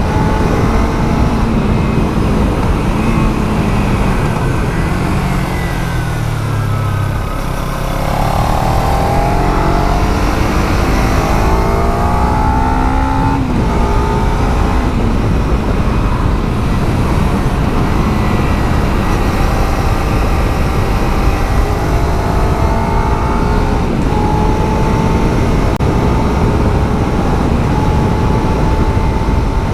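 Kawasaki Z300's parallel-twin engine through its stock exhaust, heard on board while riding: the revs fall from about three to seven seconds in, then climb in quick rising sweeps with short breaks for gear changes, before settling into steadier running with gentle rises. Wind noise on the microphone lies underneath.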